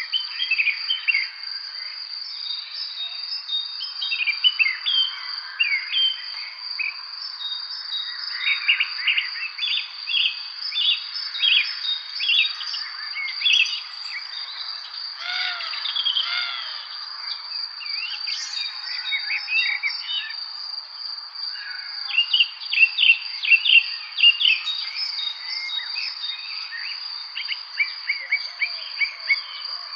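Several small songbirds chirping and singing in a spring evening chorus, quick runs of short notes coming in flurries, over a constant high-pitched drone.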